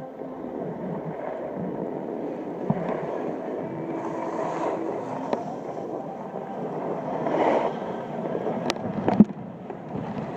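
Snowboard sliding down a groomed slope, its base and edges scraping over firm, chopped-up snow, the noise swelling as the board turns. A couple of sharp knocks come about nine seconds in.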